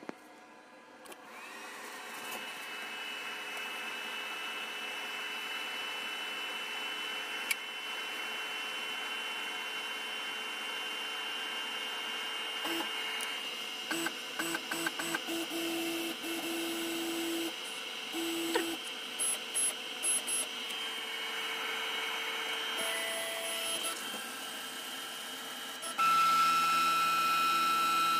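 Desktop CNC router's spindle motor spinning up about a second in and then running with a steady whine. Around the middle the axis stepper motors make a series of short stop-start moves, and near the end a louder, steadier motor tone sets in.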